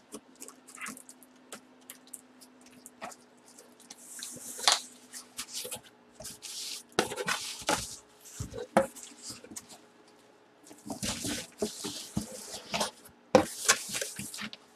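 Cardboard box being handled and moved about: irregular bumps and clicks with several bursts of scraping, rustling noise. A faint steady hum sits underneath.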